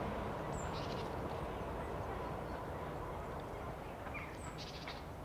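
A small songbird chirping twice, each time a short high downward note followed by a quick run of chips, about half a second in and again about four seconds in, over a steady low background rumble.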